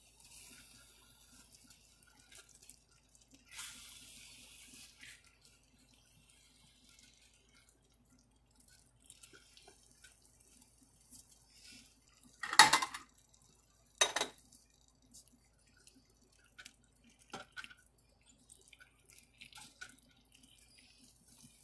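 Wooden spatula digging into and scooping cheesy lasagna in a stainless steel skillet: soft wet squelches and light scrapes. Past the middle come two sharp knocks about a second and a half apart, then a few small ticks.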